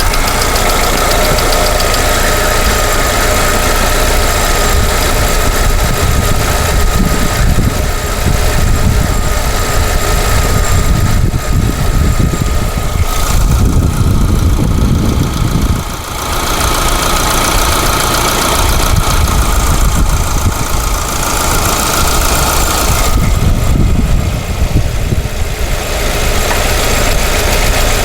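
Lada Vesta 1.6-litre petrol engine running at idle. Its sound shifts twice, about halfway and near the end, turning lower and deeper for a few seconds.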